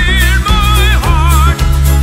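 Song playing: heavy, steady bass under a high melody line that wavers up and down in pitch.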